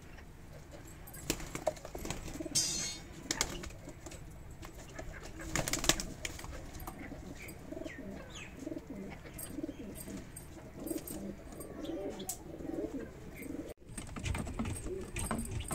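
Domestic pigeons cooing in short low repeated calls, with a few sharp knocks and rattles as the wooden coop doors are handled in the first six seconds.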